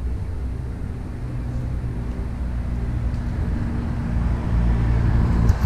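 Street traffic: a steady low engine rumble with a faint hum, swelling slightly near the end, and a couple of sharp clicks right at the end.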